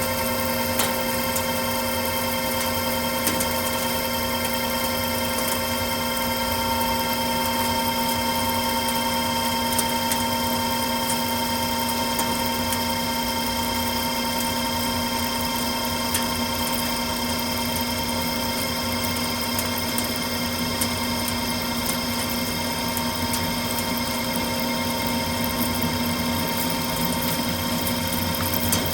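Precision Matthews manual lathe running steadily under a facing cut on a pipe flange, with an unchanging machine hum and whine and a few faint ticks.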